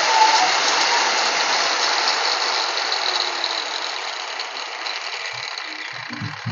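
Electric angle grinder, fed through a fan-regulator speed controller, winding down: its whirring fades steadily over several seconds as it slows after being turned down and off. A few light knocks come near the end.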